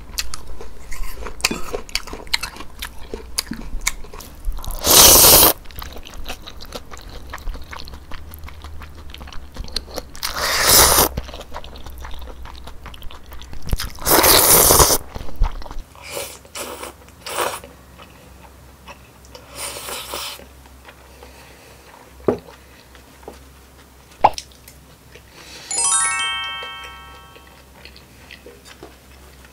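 Close-up eating sounds: spicy mixed noodles slurped in three long pulls, about five, eleven and fourteen seconds in, with chewing and small mouth clicks between. Near the end, a quick falling run of chime-like notes, an added sound effect.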